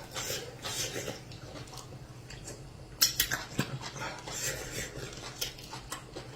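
Close-miked eating sounds of a person chewing soft amala with soup: wet mouth smacks and small clicks. A sharp click or clink of a dish or utensil comes about three seconds in.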